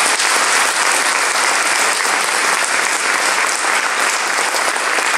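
Church congregation applauding steadily, a dense, even clapping.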